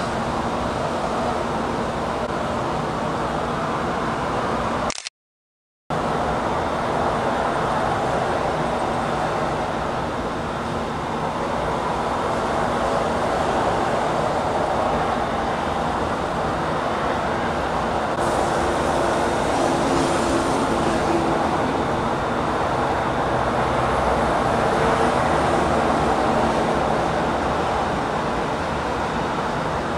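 Steady city traffic noise, with a faint passing vehicle a little past the middle. The sound drops out completely for about a second around five seconds in.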